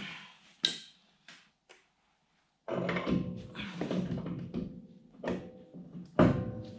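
Heavy metal knocks and clunks as the truck's rear hub is worked back onto the axle spindle. A few single knocks, then a busy run of clattering with some ringing, and one hard clunk near the end.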